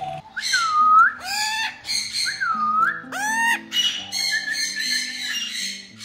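A female eclectus parrot giving a run of about five loud, harsh squawks, several dipping and then rising in pitch, the loudest about a second in, over background music.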